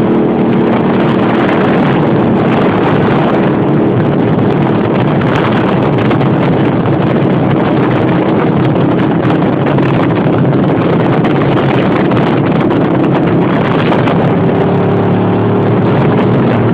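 Motorcycle engines running at steady cruising speed, a continuous drone, with road and wind noise rushing over the microphone.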